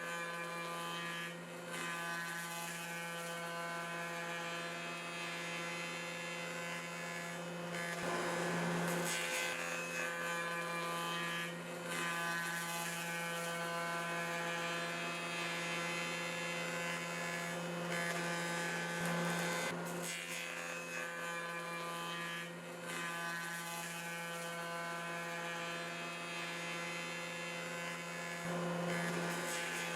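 An electric motor runs with a steady buzzing hum. A few short, louder scraping noises come through over it.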